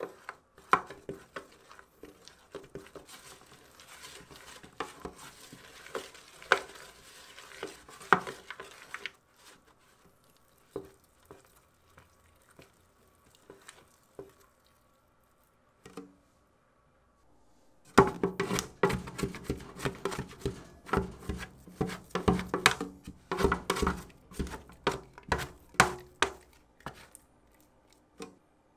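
A utensil stirring in a mixing bowl, knocking lightly and irregularly against its sides. It pauses for several seconds partway through, then resumes faster and louder.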